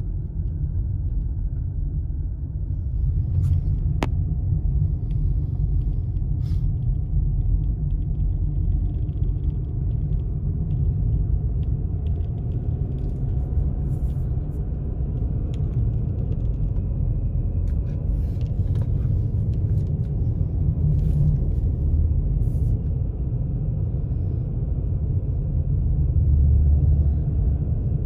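Steady low rumble of a car driving at about 26 mph on a snow-covered road, heard from inside the cabin: tyre and road noise with the engine underneath. There are a few faint clicks.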